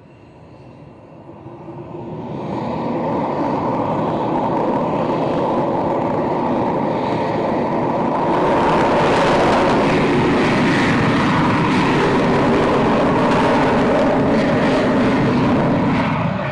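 Aircraft engines on takeoff: the sound builds over the first few seconds as power comes up, grows louder and brighter about halfway through as the aircraft rolls and climbs out, and eases slightly near the end.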